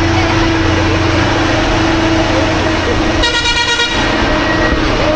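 Local bus running along a rough mountain road, heard from its roof: steady engine and road noise, with one short horn blast a little past three seconds in.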